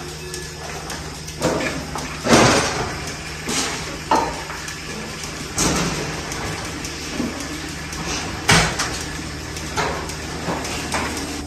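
A series of irregular knocks and bangs, about seven in all, some ringing briefly, over a steady low hum.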